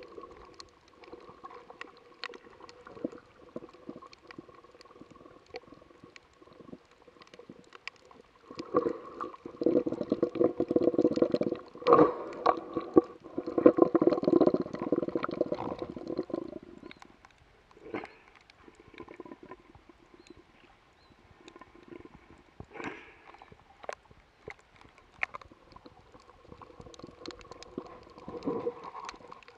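Underwater sound picked up by an action camera in its housing while snorkeling over a coral reef: a muffled water hush sprinkled with many small sharp clicks over a faint steady hum. About nine seconds in, a louder muffled rumble builds and lasts some eight seconds before fading back to the clicking.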